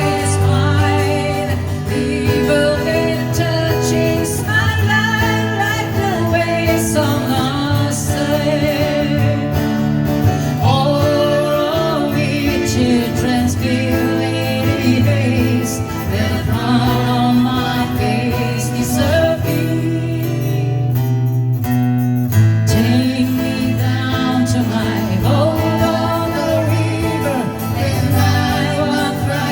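Live acoustic guitars playing a slow folk-pop song, with a wavering melody line carried by voices.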